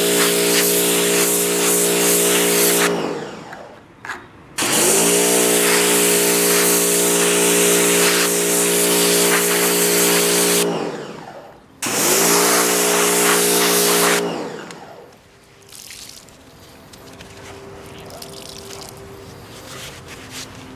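Pressure washer spraying a car polishing pad clean: a steady motor hum with the hiss of the spray. The motor winds down and stops about three seconds in and again near eleven seconds, restarting each time with a rising pitch, then winds down for good about two-thirds of the way through.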